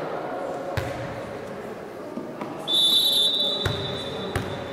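Referee's whistle: a single steady, high blast about two and a half seconds in, loudest for about half a second and then trailing off. A few sharp thuds of the volleyball fall around it.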